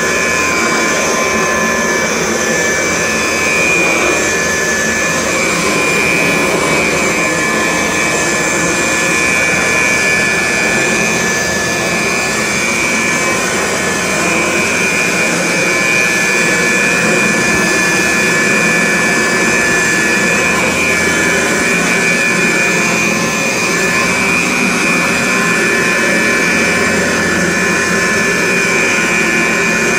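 Kirby 517 upright vacuum running steadily, its motor and metal ten-blade fan giving a loud rush with a steady high whine.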